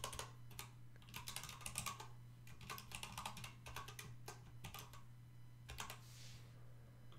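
Typing on a computer keyboard: quick bursts of keystrokes that stop about five seconds in, followed by a couple of single clicks. A faint steady low hum lies underneath.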